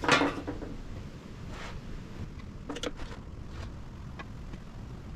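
A few light clicks and clacks of plastic spring clamps being set around the rim of a subwoofer basket, including a quick double click near the middle, over a steady low background rumble.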